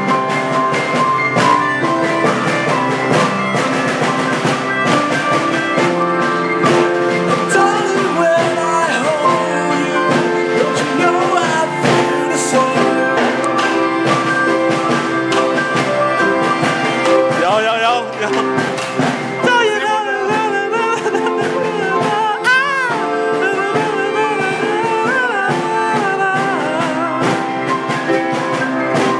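Rock song with drum kit, guitar and singing. In the second half a high melody line bends and wavers in pitch.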